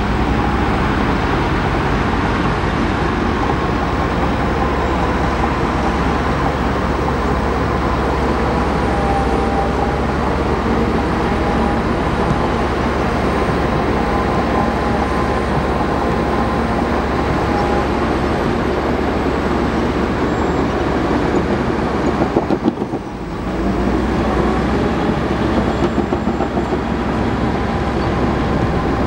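Bulldozer's heavy diesel engine running under load with its steel tracks clanking, a faint wavering squeal above the engine. The sound eases briefly about three-quarters of the way through, then picks up again.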